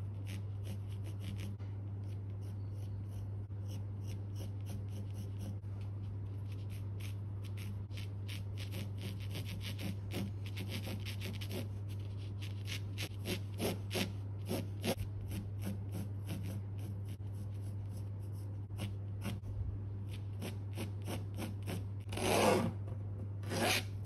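Graphite pencil scratching across textured canvas in many short sketching strokes. Near the end come two louder scrapes as a steel ruler is set against the canvas.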